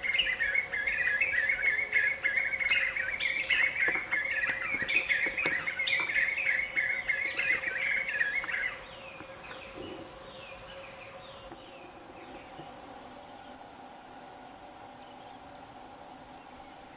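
Black-fronted nunbirds calling together in a loud, dense chorus of rapid, overlapping calls. The chorus cuts off abruptly about nine seconds in, leaving a steady insect drone.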